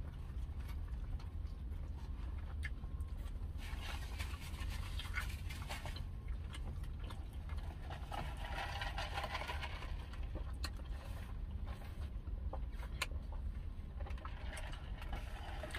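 Close-up mouth sounds of a person eating chicken wings: chewing and lip-smacking with small clicks, over a steady low hum of a car cabin. A sip through a straw comes near the end.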